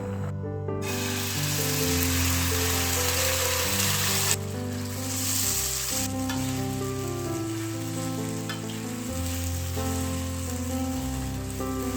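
Food sizzling in a frying pan, a dense hiss that starts abruptly about a second in and drops sharply about four seconds in, then goes on more faintly, over gentle background music.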